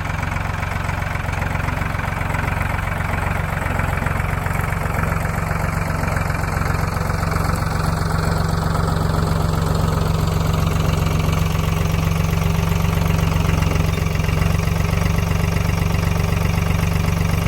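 Wood-Mizer LT10 portable band sawmill running steadily, its engine-driven band blade sawing a log into 6x6 timbers.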